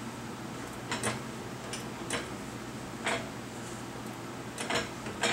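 A jack being pumped to raise the truck's front suspension, giving a sharp metallic click or double click with each stroke, about once a second, over a steady low hum.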